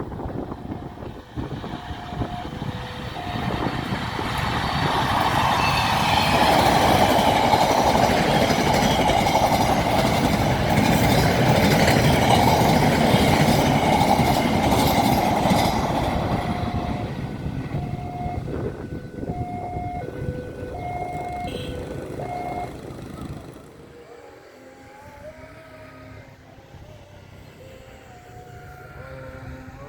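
A heavy diesel-hauled train passing at speed: the rush of locomotive and rolling wheels builds, stays loud for about ten seconds, then fades away. In the second half, short steady tones repeat about once a second.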